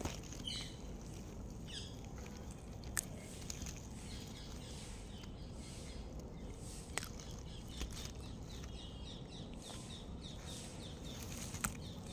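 Star tortoise biting into cucumber: a few sharp, crisp crunches several seconds apart, with birds chirping in the background.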